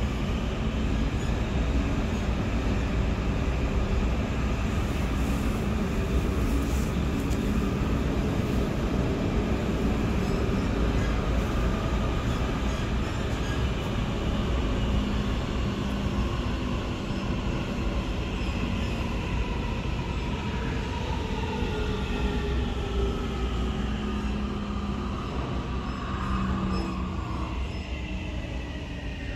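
Inside a Siemens C2 Munich U-Bahn train running: a steady rumble of the wheels on the rails, with a whine made of several tones from the traction drive. Over the last several seconds the tones fall in pitch as the train slows into a station.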